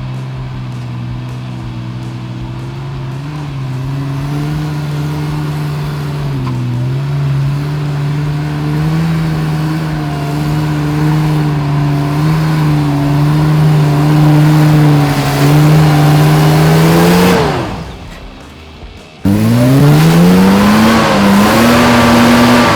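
Four-wheel drive's engine running hard at high revs, its pitch slowly climbing, then dropping away about 17 seconds in. About two seconds later an engine revs up sharply from low and holds high revs.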